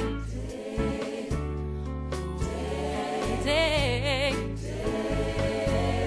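Gospel choir singing with keyboard accompaniment and a steady bass line, voices swelling into a held note with wide vibrato about three and a half seconds in.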